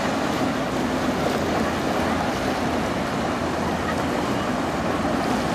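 Steady rushing wash of choppy water with wind on the microphone and a low, even hum underneath.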